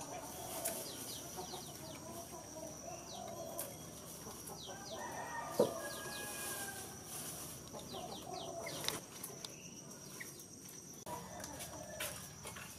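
Faint village ambience: chickens clucking and small birds chirping, over a steady high insect drone, with light clicks and rustles and a single sharp knock a little before midway.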